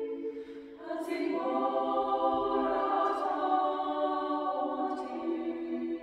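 Mixed chamber choir singing a cappella: held chords, a short break just under a second in, then a new phrase entering and held.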